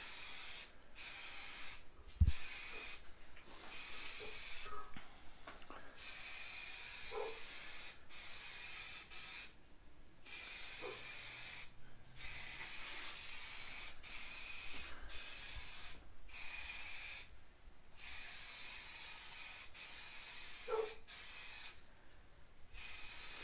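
Aerosol spray paint can hissing in long passes with brief stops between strokes, laying on a third coat of paint. A single sharp knock sounds about two seconds in.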